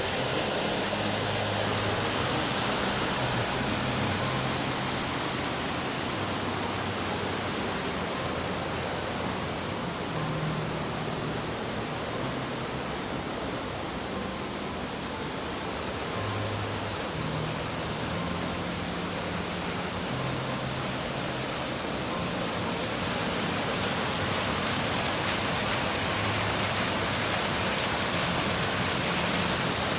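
Steady rush of a waterfall with a 40 to 50 foot drop, running full and fierce after rain.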